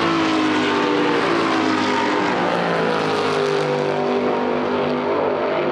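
Superstars Series V8 racing cars running at high revs, a loud steady engine note that falls slowly in pitch.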